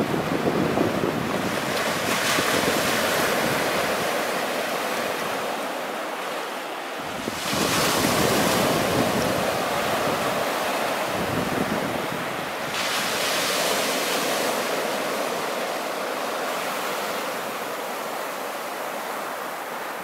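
Small waves breaking on a flat sandy beach and washing up the sand as foamy surf. The rushing hiss swells with each wave, about every five seconds.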